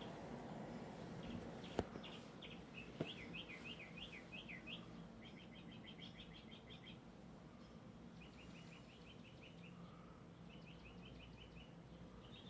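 Faint bird song: quick chirps and short trills repeated in bursts. Two sharp clicks come in the first few seconds, over a faint low hum.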